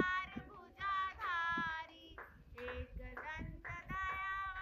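A group of women and girls singing a Hindi aarti to Ganesha in unison, clapping their hands to the beat.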